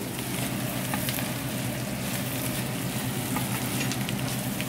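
Chopped pork sisig sizzling as it fries in a pan, with a few light clicks scattered through it.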